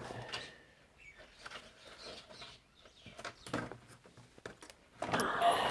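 Handling noise of TV cables and plastic connectors being fitted onto the circuit board: irregular small clicks and rustles, then a louder stretch of scraping and rustling near the end.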